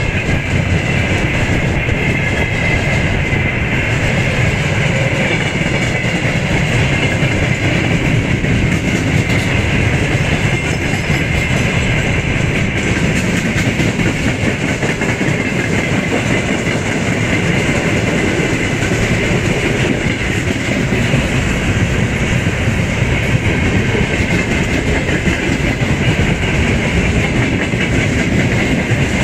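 Freight train of tank cars and boxcars rolling steadily past at close range: a continuous rumble and clatter of wagon wheels on the rails, with a steady high ringing tone above it.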